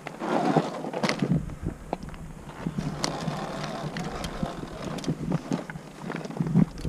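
Sur Ron X electric dirt bike rolling over a rocky trail: tyres crunching over loose stones and the bike rattling and knocking over the rocks, with the hardest knocks in the first second. There is no engine sound, only the bike's own clatter.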